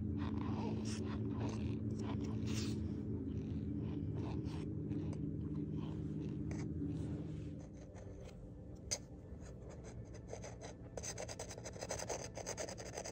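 Metal spoon scraping and digging through packed cornstarch in a plastic tub: a run of short scratchy crunches, densest near the end. A steady low hum underneath stops a little past halfway, and there is one sharp click.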